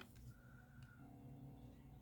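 Near silence: room tone with a faint low hum, and a faint brief whistle-like tone near the start.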